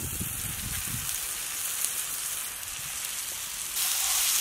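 Chopped tomatoes, garlic and ginger sizzling on a hot flat iron pan over a wood fire: a steady hiss that grows louder near the end.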